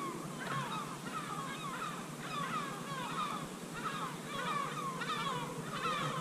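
Birds calling: many short, falling calls that repeat and overlap.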